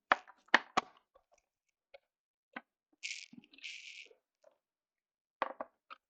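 Sharp clicks and knocks of a small plastic-cased camera and tools being handled on a workbench as it is taken apart, with two short scraping sounds about three seconds in and a few more clicks near the end.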